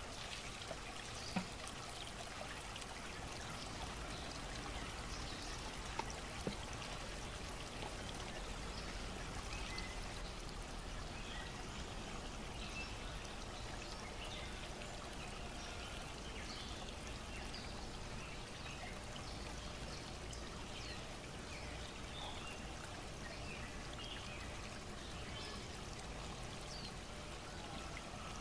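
Steady trickling water with faint high chirps scattered through it, and a few short sharp clicks: one about a second in and two close together around six seconds in.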